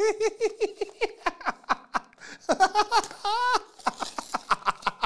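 A man laughing in a high-pitched giggle: rapid runs of short, squeaky bursts with pitch that rises and falls.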